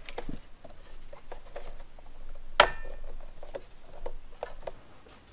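Hands handling a car head unit and its plastic wiring harness: light rustling and small plastic clicks, with one sharp click about two and a half seconds in.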